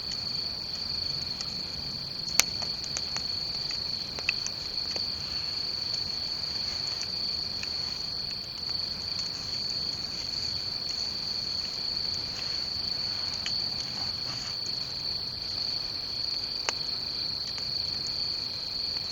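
Crickets chirping steadily, with a few sharp snaps, the loudest about two and a half seconds in.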